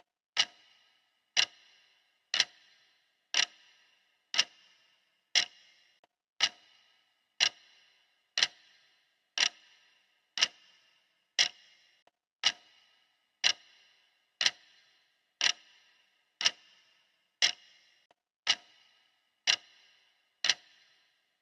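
Steady clock-like ticking used as a countdown timer's sound, one sharp tick each second, each with a short bright ring.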